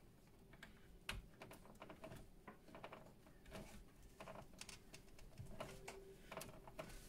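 Faint plastic clicks and rattles of PCIe power cable connectors and their cables being handled and pushed onto a graphics card's power sockets, with one sharper click about a second in.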